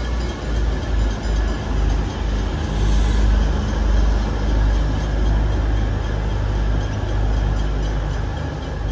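V/Line VLocity diesel multiple unit passing close by: a loud, steady low rumble of its diesel engines and wheels running on the rails.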